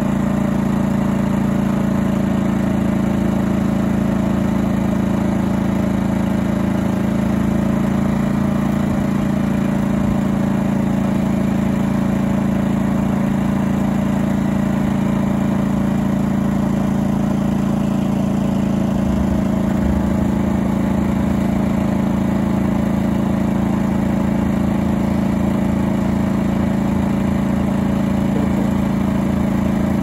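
Small portable gasoline generator running steadily with a constant engine hum, powering an electric vaporizer wand used to treat beehives for mites.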